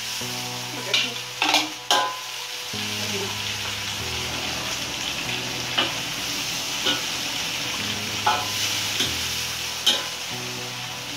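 Water spinach stir-frying in a hot wok over a gas burner: steady sizzling, with a spatula scraping and knocking against the wok several times.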